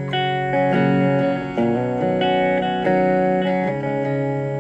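Clean electric guitar through a Blackstar ID:Core Stereo 10 V2 practice amp: about six chords, each struck and left to ring before the next. The amp's ISF tone control is turned to the right, for a clear, thick clean tone.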